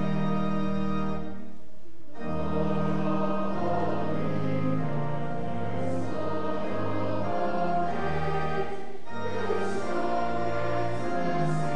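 Choir singing with organ accompaniment, in sustained chords over a bass line. The music breaks briefly between phrases about two seconds in and again about nine seconds in.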